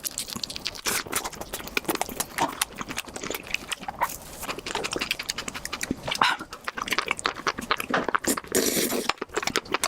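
Close-miked wet chewing and mouth smacking on chewy mushrooms, a dense run of quick clicks and squelches, with a rushing noise lasting about a second near the end.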